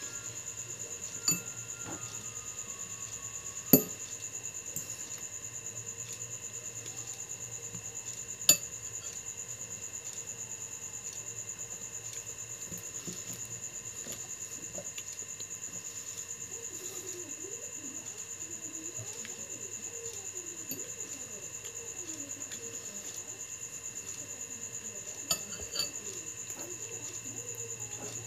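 Crickets chirping steadily, with a few sharp clinks of an eating utensil against a bowl or plate, the loudest about four and eight seconds in.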